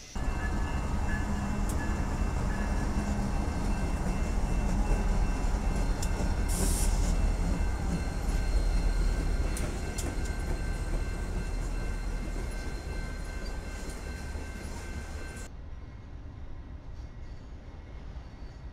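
Canadian Pacific diesel locomotives passing close by: a heavy, deep engine rumble with a steady high whine over it, and a brief hiss about seven seconds in. About fifteen seconds in it cuts to a quieter, more distant locomotive rumble.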